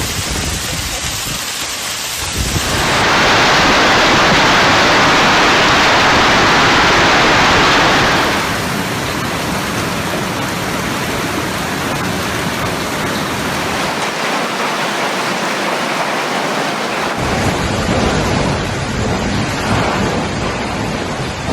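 Heavy storm downpour: a dense, steady rush of pelting noise. It is loudest from about 3 to 8 seconds in and changes character abruptly several times.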